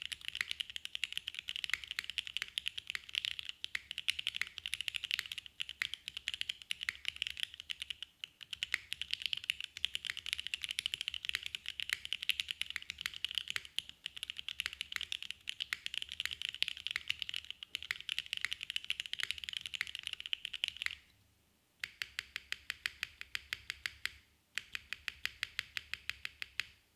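Custom Mode 65 v2 mechanical keyboard (copper bottom, polypropylene plate, top mount, lubed Gateron Mizu Mink switches) being typed on quickly and continuously. After a brief pause near the end, two runs of evenly spaced single key presses follow.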